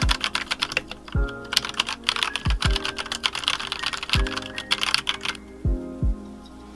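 Typing on an Akko World Tour Tokyo mechanical keyboard: a fast run of key clacks from about a second in until near the end, over lofi background music with a drum beat.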